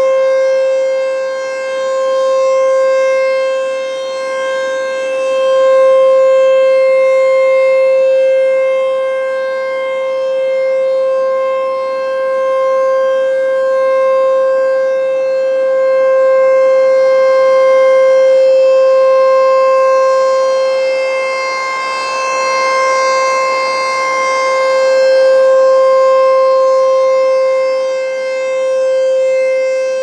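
American Signal Tempest T-128 outdoor warning siren sounding a steady alert signal, holding one pitch throughout. Its loudness swells and fades every few seconds as the rotating horn sweeps around.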